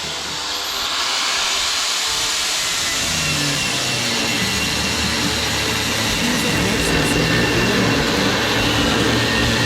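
Angle grinder running steadily under load, cutting into a metal prop-shaft protector tube and its mounts; the cut eases briefly at the start, then holds steady from about a second in.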